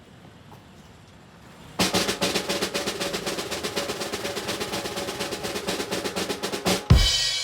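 Snare drum roll, a fast even run of strokes lasting about five seconds, ending in a heavy drum hit with a cymbal crash that rings out.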